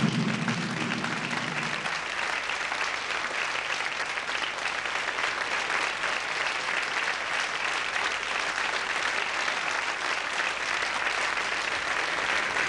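Audience applauding steadily and densely. A low held musical note from the act's music fades out in the first two seconds.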